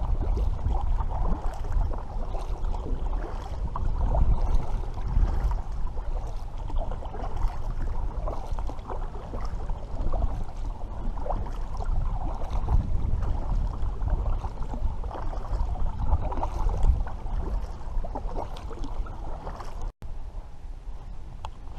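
Water sloshing and gurgling around a kayak, with wind buffeting the microphone in a steady low rumble. The sound cuts out for an instant near the end.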